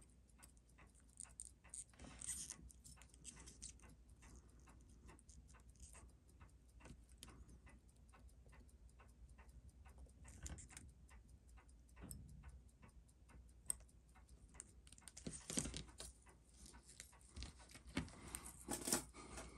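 Faint, regular clockwork ticking, about three ticks a second, with a few louder knocks and rustles of handling on top, the loudest near the end.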